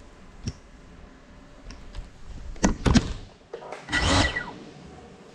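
Small FPV cinewhoop drone crashing: a few light knocks, then two sharp impacts about two and a half seconds in, and a brief rasping burst about four seconds in as it comes to rest on a tabletop.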